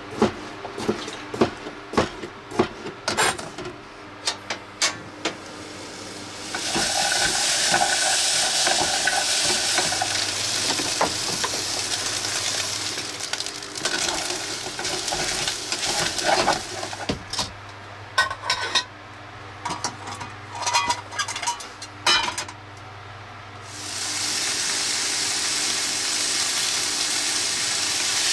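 Stovetop cooking: a run of sharp knocks in the first few seconds, then food sizzling in a hot pan. A wooden spatula stirs and scrapes rice in an aluminium pot with irregular clicks, and near the end a loud sizzle starts as raw chicken pieces fry in a pan.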